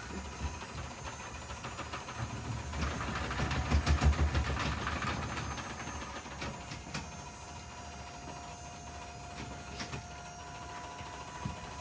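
Electric bed-lift motor running as it lowers the seats in a toy hauler. It sets up a low drone with rattles that is loudest a few seconds in, then goes on more steadily with a thin whine.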